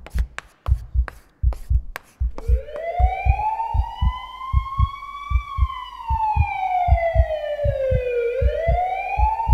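A heartbeat sound effect thumps in pairs, about once every 0.7 s. An emergency siren comes in about two seconds in: it wails up, slides slowly down, then starts rising again near the end.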